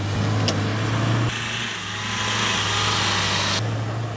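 Land Rover Defender's engine running under load as the truck climbs a steep dirt slope, a steady low hum. From about a second in until near the end, a steady hiss sits over it.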